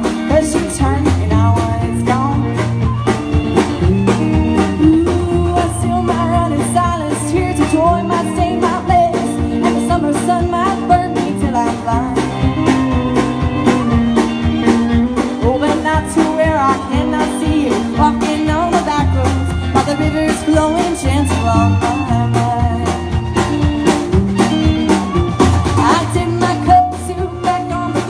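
Live country-rock band playing a song, with a woman singing lead over electric guitar, bass and a steady drum beat.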